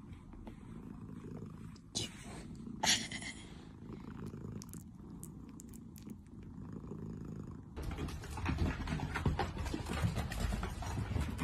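A newborn kitten purring steadily, with two short high mews about two and three seconds in. About eight seconds in, the purring gives way to a louder run of clicks and noise.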